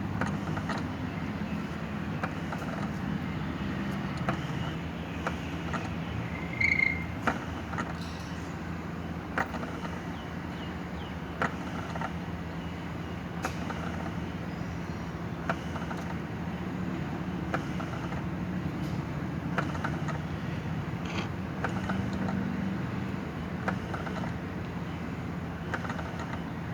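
Car wiper motor running a homemade ventilator's crank linkage to squeeze a breathing bag: a steady motor hum with a click about every two seconds, once per stroke, and one louder squeak about a quarter of the way in.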